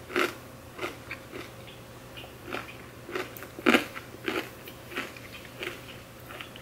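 Close-up chewing of a crisp pistachio pomegranate cracker spread with goat cheese: a series of irregular crunches, the loudest just after the start and again near four seconds in.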